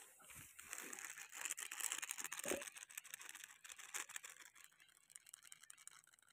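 Scratchy rustling noise with irregular crackles, weakening over the last couple of seconds.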